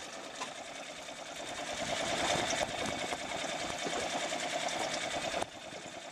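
Fishing reel being cranked, a fast whirring rattle of its gears that grows louder about two seconds in and cuts off suddenly near the end.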